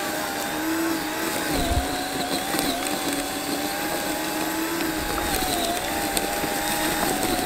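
Small 2.5-amp electric tiller running steadily, its motor whine wavering slightly in pitch as the tines churn through soil and weeds.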